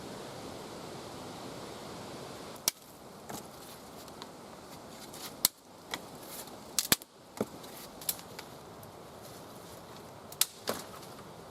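Steady windy hiss, then a string of about eight sharp, irregular clicks or snaps, the loudest about a third of the way in, twice around the middle and once near the end.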